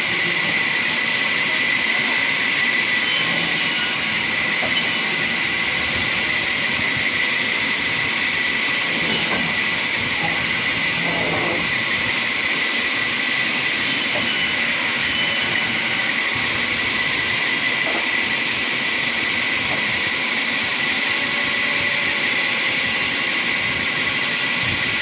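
Sawmill saw running steadily, a continuous high whine over a hissing noise.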